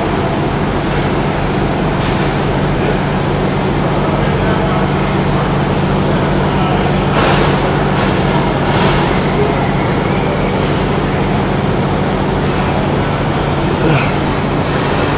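Heavy truck engine idling with a steady low drone, with a few short clicks and knocks from hands and meter probes at the wiring harness.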